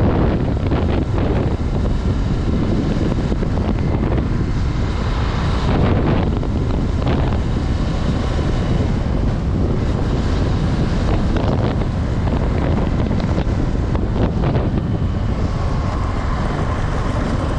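Honda Twister 250 motorcycle's single-cylinder engine running, with wind rushing over the microphone.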